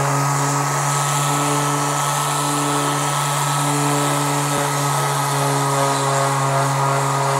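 Cordless palm sander running steadily against a polyethylene boat hull, sanding out scratches and gouges in the plastic.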